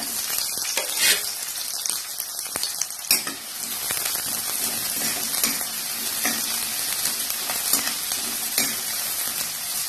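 Chopped onions sizzling in hot oil in a kadai, stirred with a steel ladle that scrapes and clicks against the pan now and then.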